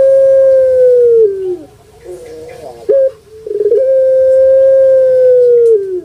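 Puter pelung dove (Streptopelia risoria) cooing its long drawn-out song. A held note falls away about a second and a half in, and a few softer broken coos follow. Then a rolling start leads into a second long, steady note of about two seconds that drops off at the end.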